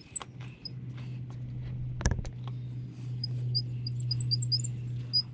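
Hand tools clicking against metal brake parts, with a sharp clatter about two seconds in, over a steady low hum. From about three seconds in, quick high-pitched chirps repeat.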